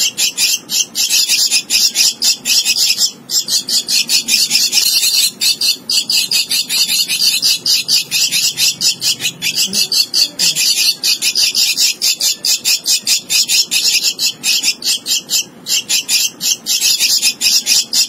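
Javan myna nestling giving high, harsh begging calls in a rapid string, several a second, with a few short breaks: a hand-reared chick calling to be fed.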